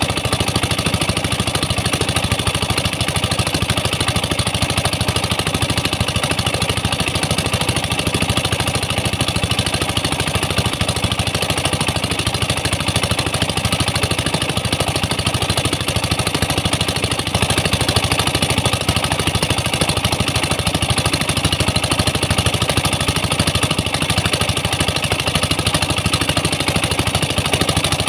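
Pump engine running steadily and evenly throughout, driving the high-pressure water jets that blast the tin-bearing sand loose, with water hissing from the nozzles.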